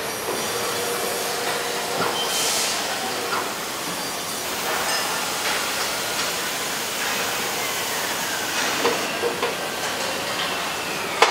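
Truck assembly-hall noise: a steady hiss of machinery with scattered sharp metallic clicks and knocks, and a brief louder hiss about two seconds in.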